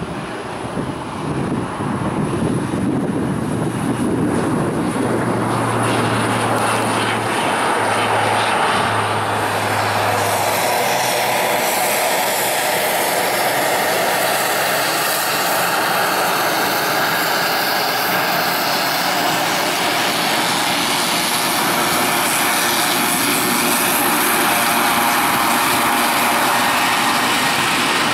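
Airbus A320-family airliner's twin jet engines running loudly and steadily as it rolls along the runway. For a few seconds near the start a low steady hum sounds under it, from a twin-turboprop taxiing past.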